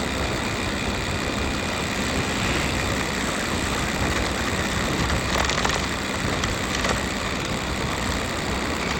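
Motorcycle ridden at a steady highway speed: the engine and rushing wind on the microphone make one even noise, with a couple of faint clicks about five seconds in.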